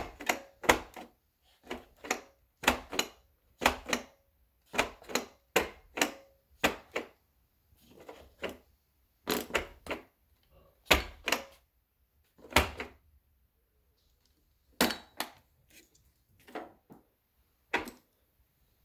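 A string of sharp clacks and knocks from hard objects being handled, often in quick pairs or threes, with short quiet gaps between them.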